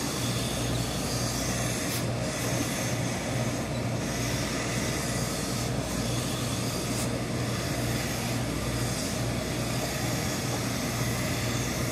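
Steady hum and hiss of a hose-fed industrial steam iron setup as it presses wool suit trousers, with a few short, sharper touches near 2, 6 and 7 seconds.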